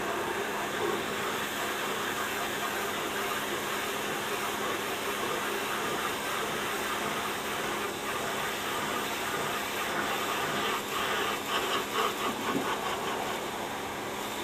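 Pressure washer running with a steady hiss of its water jet and a low motor hum; the spray surges unevenly a few seconds before the end.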